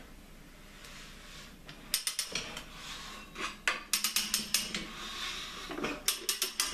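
Ratcheting mechanism of a RABACONDA motorcycle tire changer clicking in quick runs as its handle is cranked back and forth, driving the duck head around the rim to work the tire bead off. The clicking starts about two seconds in and comes in several bursts.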